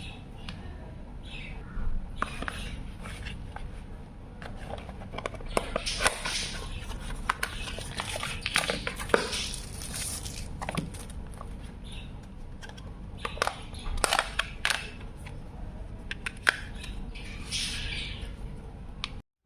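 Close-up handling noise: sharp clicks, taps and short scraping rustles of small hard objects being handled and worked on, scattered irregularly over a low steady hum.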